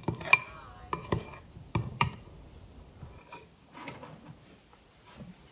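Metal spoon clinking and scraping against a glass dish while stirring soap shavings: several sharp clinks in the first two seconds, one with a brief glassy ring, then a few fainter taps.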